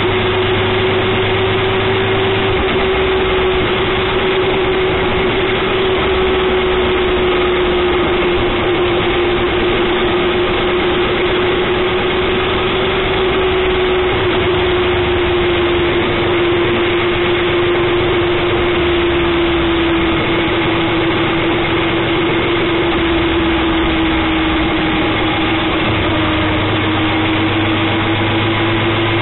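Motorcycle cruising at a steady speed, heard from on board: a steady engine hum whose pitch sinks slowly and slightly, over a constant rush of wind and road noise.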